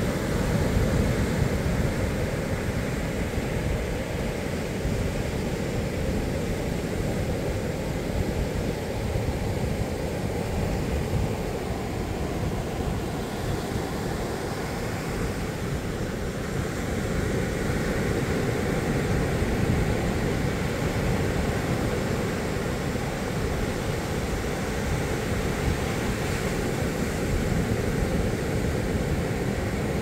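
Ocean surf breaking and washing onto a sandy beach in a steady rumble, with wind rumbling on the microphone.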